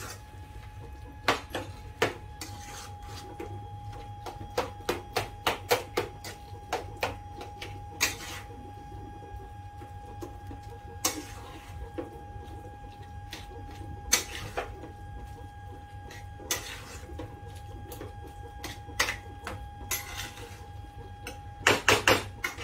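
Metal fork clinking, knocking and scraping against a metal pot as boiled potatoes and vegetables are mashed and mixed into pav bhaji. The knocks are irregular, with quick runs of clinks about five seconds in and again near the end, over a steady low hum.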